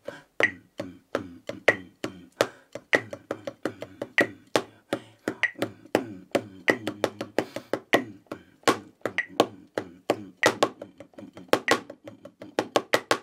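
Wooden drumsticks playing a polyrhythmic snare solo on a Reflexx rubber practice pad: quick clusters of sharp taps with louder accents. A metronome beep keeps time about every second and a quarter.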